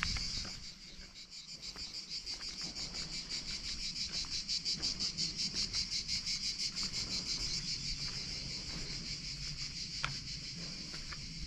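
Cicadas singing in a steady, rapidly pulsing high chorus that swells a little towards the middle.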